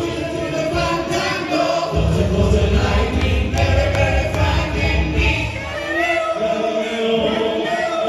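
A vocal group of several singers performing live into handheld microphones, voices singing together in harmony through the venue's sound system. A heavy bass comes in about two seconds in and drops away a little after five seconds.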